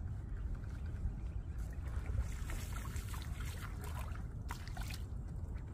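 Low rumble of wind on the microphone, with scattered light clicks and ticks between about two and five seconds in.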